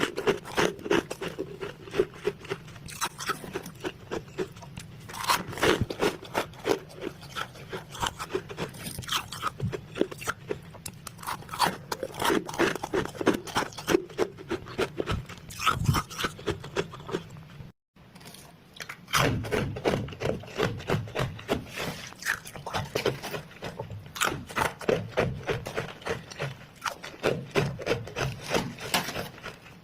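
Close-up crunching of freezer frost being chewed: a dense, irregular run of small crackling crunches, broken by a brief gap about 18 seconds in.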